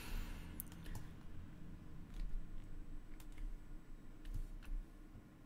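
A few scattered clicks from a computer keyboard and mouse being operated, over a low steady hum.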